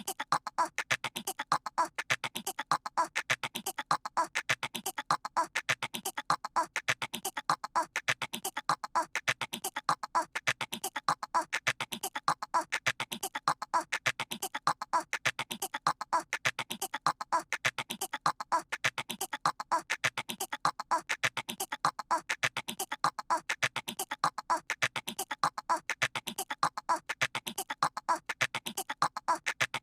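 A voice imitating a squirrel's chatter: quick clicking chirps repeated over and over in an even, unbroken loop.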